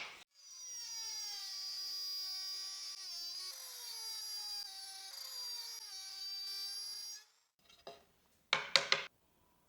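Handheld wood router with a straight bit running at high speed, cutting a groove along a small piece of wood: a steady high whine that sags in pitch twice as the bit bites harder, then stops suddenly. A few sharp knocks of the workpiece or tool being handled follow near the end.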